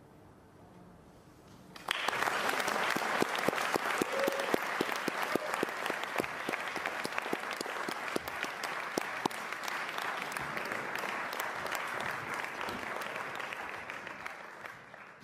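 Audience applauding, starting suddenly after about two seconds of quiet and tailing off near the end.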